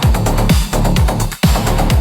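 Electronic background music, AI-generated with Suno, with a steady kick drum beating a little over twice a second.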